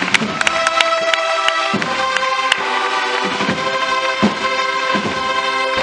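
Spanish Holy Week processional band playing a slow marcha: held brass chords over intermittent bass drum strokes.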